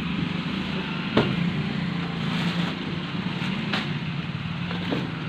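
A cardboard box holding a guitar being handled and opened, with three sharp clicks or taps about a second in, near four seconds and near the end, over a steady background hum and hiss.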